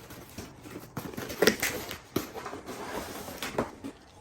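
Rustling and handling of packaging and creeper parts being taken out of a box, with a few sharp knocks.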